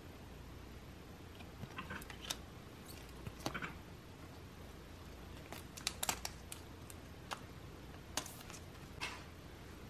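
Hands handling merchandise and its packaging: an irregular scatter of small clicks, taps and brief crinkles, with the sharpest cluster about six seconds in.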